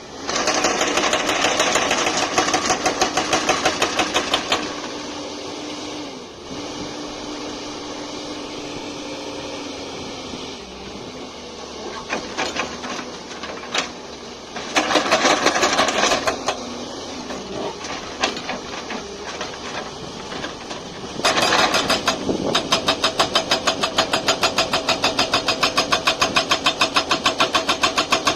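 Excavator-mounted hydraulic breaker hammering in rapid, evenly spaced blows, in three bursts: one at the start, a short one near the middle and a long one near the end. Between bursts the excavator's diesel engine runs at a lower, steadier level.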